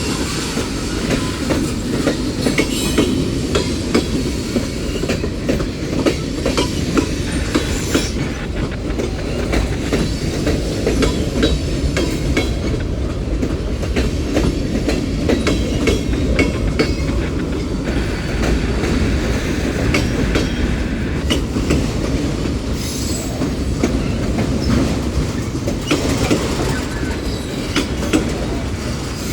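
Union Pacific mixed freight train rolling past close by: a steady rumble of freight cars with frequent clicks as the wheels cross rail joints.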